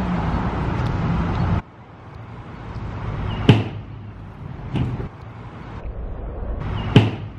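Stunt scooter landings: two loud, sharp impacts about three and a half seconds apart, with a smaller knock between, as the scooter comes down hard on the tow truck's steel tray. Before them, a steady vehicle hum that cuts off suddenly.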